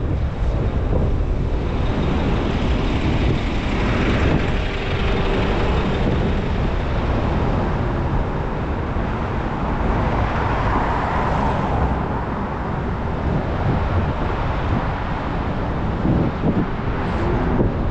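Wind rushing over the microphone of a moving bike, mixed with road and traffic noise, steady throughout, with a louder swell about ten seconds in.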